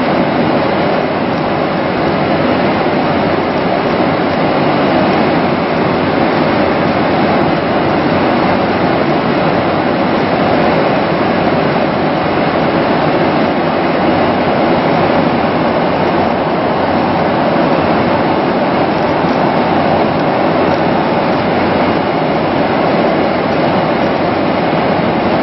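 Steady cabin noise inside a Boeing 767 airliner in cruise: an even rush of airflow and engine noise with no change.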